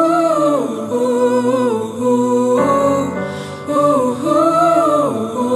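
Background music: a melody of held notes that bend and waver, in phrases of a second or two.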